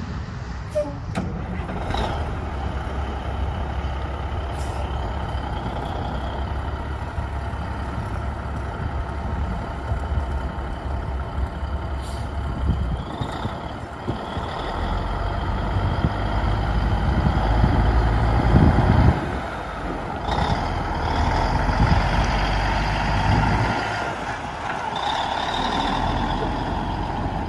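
1987 Freightliner water truck's diesel engine running, then pulling away and driving past over gravel, its sound building as it accelerates and dropping suddenly about two-thirds of the way through. A few short hisses and clicks come early on.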